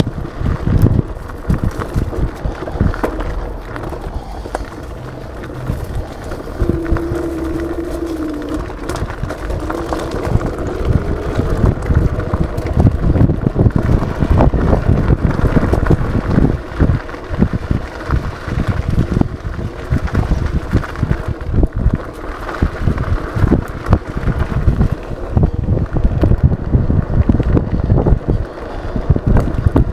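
Wind buffeting the microphone over the tyre rumble and rattling knocks of an E100 Eagle electric scooter ridden over a rough dirt path. It grows louder and bumpier about a third of the way in.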